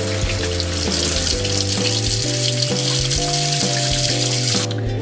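Cold tap water pouring and splashing onto the lid of a stainless pressure cooker in a sink, cooling it to bring the pressure down; the water sound stops suddenly near the end. Background guitar music plays throughout.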